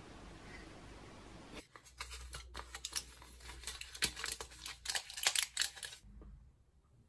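Capsules being pushed out of a foil blister pack: a quick run of crackles, pops and tearing from the foil backing, starting about a second and a half in and loudest near its end, after faint room hiss.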